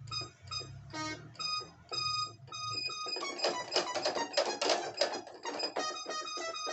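Alesis Recital 88-key digital piano playing separate bright notes. About three seconds in, it breaks into a dense run of rapid notes.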